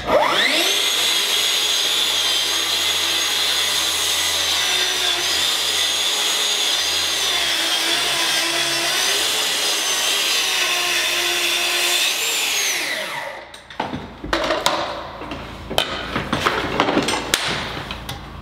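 Festool track saw spinning up and cutting through the bottom of a hanging door along its guide rail: a steady high motor whine that dips in pitch now and then under load, winding down about thirteen seconds in. Then a scattering of knocks and clicks.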